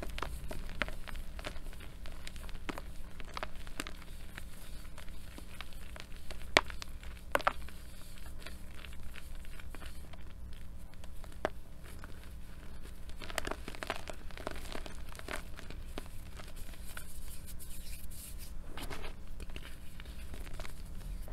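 Lumps of reformed gym chalk squeezed and crumbled by hand in a bowl of chalk powder: soft powdery crunching with scattered sharp cracks, two louder cracks about six and seven seconds in.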